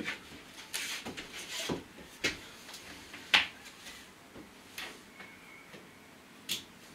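Hands working the plastic push-pin clips of a van's factory side panel: irregular short clicks and knocks, the sharpest about three and a half seconds in and again near the end.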